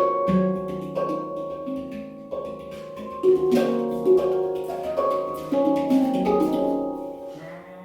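Handpan (steel tongue-less hand drum, Eb La Sirena 15 scale) played by hand: struck notes ringing out with long sustain, melody and deep centre note overlapping, with light finger taps between notes.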